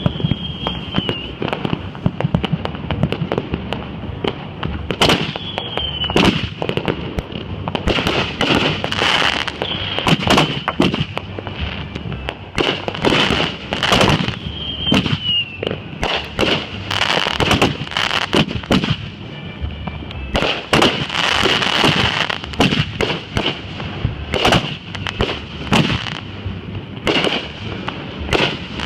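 Fireworks going off in rapid succession: a dense string of bangs and crackles, with a high whistling tone that now and then glides briefly downward.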